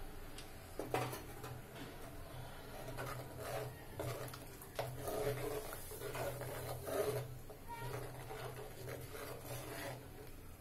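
Steel spoon stirring a thin gravy in an earthenware clay pot, scraping and knocking irregularly against the pot's sides and bottom, with sharper knocks about a second in and near seven seconds. A faint steady low hum runs underneath.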